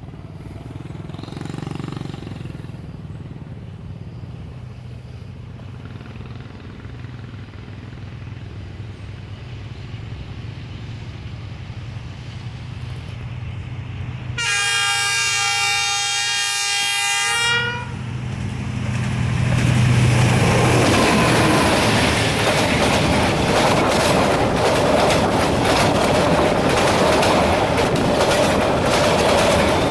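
Passenger train approaching with a steady, slowly growing diesel locomotive rumble. About halfway through its horn sounds one loud blast lasting about three seconds. The train then passes close by, loud, its wheels clattering rapidly over the rail joints.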